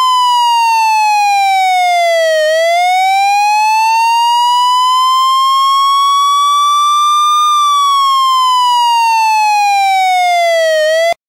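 Taiwanese fire engine siren wailing: one steady tone sliding slowly down in pitch, rising again over about five seconds, then falling once more before cutting off abruptly near the end.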